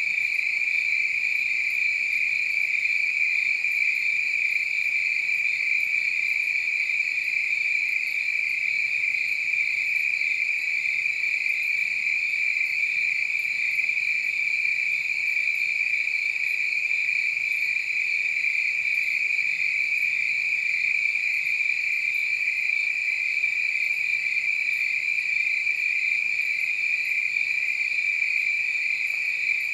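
A chorus of crickets trilling steadily and without a break, high-pitched and even in level throughout.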